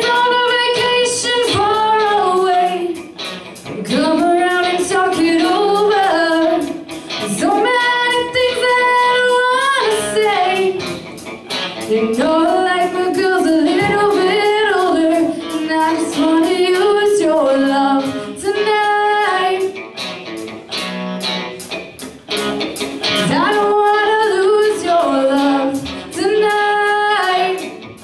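A woman singing lead through a microphone with a live band of electric guitars, bass and drums, in phrases with short breaks between lines over a steady beat.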